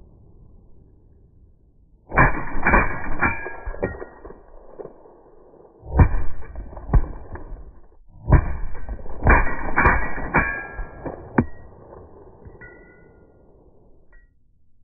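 Suppressed rifle shots slowed down to slow-motion speed, so each report is deep and drawn out. They come in three groups: a cluster about two seconds in, a shorter one around six seconds, and a longer run of several shots from about eight to eleven seconds.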